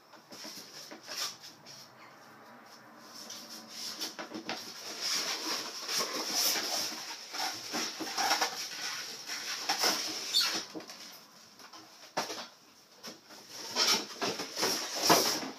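Cardboard and plastic packaging of a model airport set being handled and unpacked: irregular rustling and crinkling with scattered clicks and knocks, loudest near the end.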